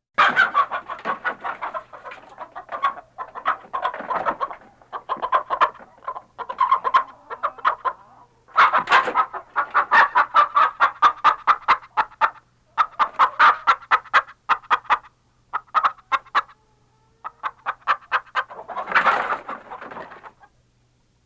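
Chickens clucking in rapid runs of short notes.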